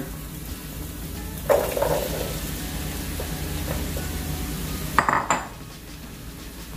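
Sliced zucchini tipped from a bowl into a pan of hot oil and onions, hitting the pan about a second and a half in and sizzling for a few seconds. Near the end there is a sharp clink of dishes, as the emptied bowl is set down.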